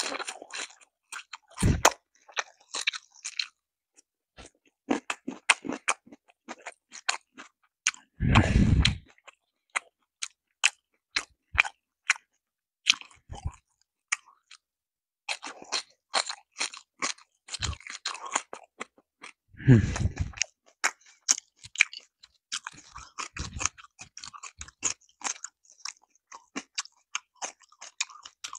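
Close-miked chewing of crispy Korean fried chicken and kimchi greens: many sharp crunches and wet mouth clicks, broken by a few short low thuds.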